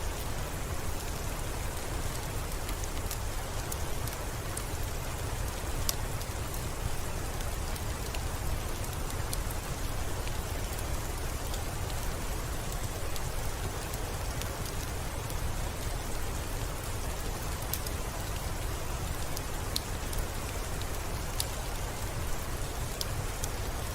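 Steady rain on a window, an even hiss with scattered sharp ticks of single drops and a deep low rumble underneath.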